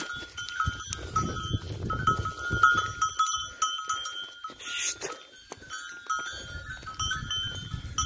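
Bells on a grazing flock of sheep clinking and ringing irregularly as the animals move and feed, with low rustling underneath.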